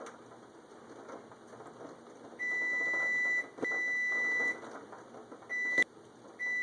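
An electronic beeper sounds a steady high-pitched beep about a second long, four times at uneven gaps, the third one cut short.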